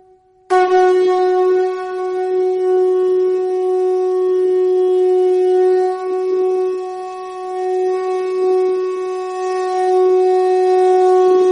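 Conch shell (shankha) blown in one long, steady note that starts about half a second in, after a short break from an earlier blow. The note swells and eases a little in loudness as the breath goes on.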